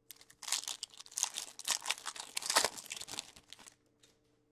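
Foil trading-card pack wrapper being torn open and crumpled: a dense, crackly rustle of tearing and crinkling that lasts about three seconds and stops shortly before the end.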